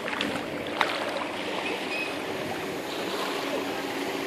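Steady beach ambience: a wash of noise from small waves and wind on the shore, with a faint steady hum underneath and one sharp click just under a second in.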